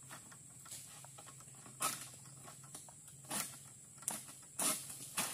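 Long-poled egrek sickle cutting at an oil palm frond or fruit bunch high in the tree: about five short, sharp cutting strokes at uneven intervals, coming closer together in the second half.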